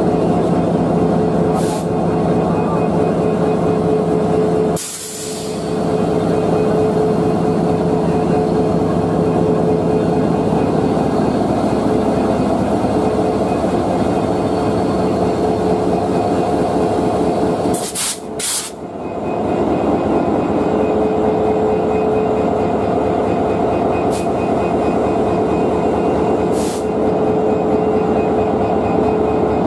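Diesel-electric locomotive running steadily, heard up close beside its bogies, with a steady hum. The sound dips briefly about five seconds in and again around eighteen seconds.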